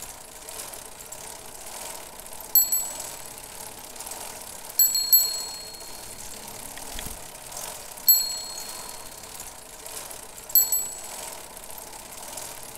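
Bicycle bell rung in four short bursts of two or three quick strikes, a few seconds apart, over a steady background hum.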